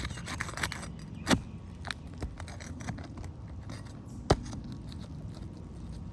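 Hand tools clinking and scraping on an asphalt shingle roof during a shingle repair, with scattered small clicks and two sharp knocks, about a second in and again about four seconds in.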